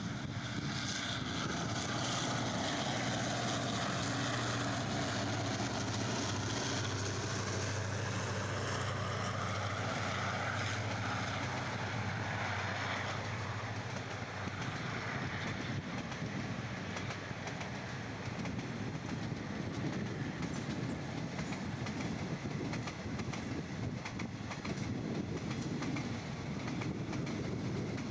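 Diesel locomotive hauling a passenger train past at speed: a steady engine drone for roughly the first half, fading as the long line of coaches follows. Through the second half the coaches' wheels clack over the rail joints.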